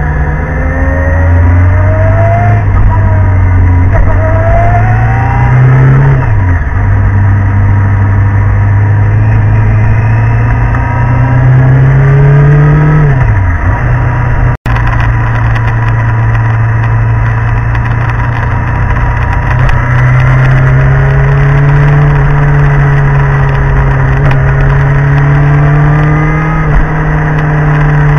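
Motorcycle engine under way, heard from a camera on the bike with wind noise over it. The engine note climbs slowly and twice, about six and thirteen seconds in, drops sharply and picks back up as the throttle is rolled off and on. The sound cuts out for an instant a little past halfway.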